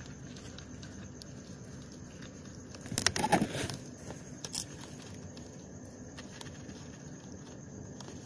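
Brief rustling and scraping against a cardboard box about three seconds in, with a single sharp click a second later and faint scattered clicks over a low steady hum.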